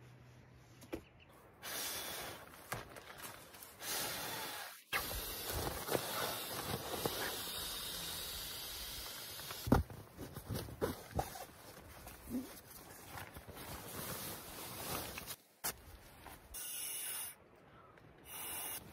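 Nylon camping gear rustling and crinkling inside a tent: a sleeping bag's compression sack and a pillow being handled, with scattered small clicks. The rustling stops abruptly a few times.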